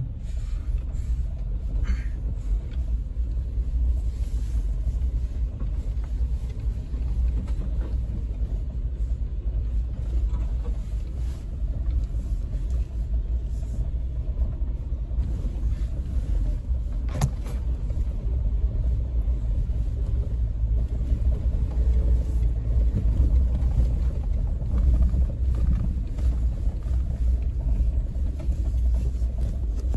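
Suzuki Jimny driving over a rutted dirt track in four-wheel drive, heard from inside the cab: a steady low rumble of engine and tyres, with one sharp knock about halfway through.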